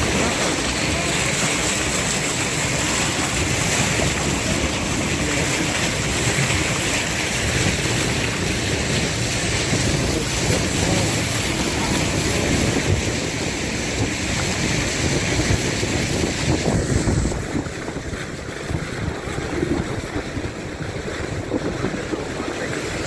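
Wind buffeting the microphone and water rushing past a moving boat, a dense, steady rush. About two-thirds of the way through the high hiss drops away, leaving a lower rumble.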